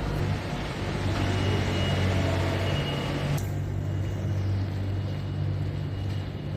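City street traffic: a heavy vehicle's engine running with a steady low hum under a hiss of passing traffic. The hiss drops away suddenly about three and a half seconds in while the engine hum carries on.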